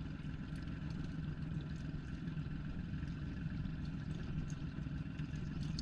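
A fishing boat's outboard motor running steadily at low trolling speed, a constant low hum with no change in pitch.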